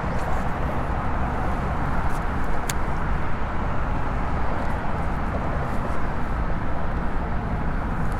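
Steady rumble and hiss of road traffic crossing the causeway bridge overhead, with a couple of faint ticks.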